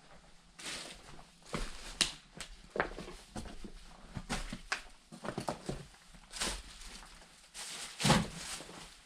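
Footsteps with irregular crunches and knocks, the sharpest about two and eight seconds in.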